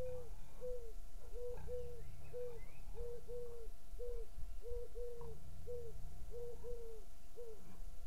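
An animal calling with a series of short hooting notes, all on the same pitch, about one every two-thirds of a second and sometimes in quick pairs. The calls stop just before the end.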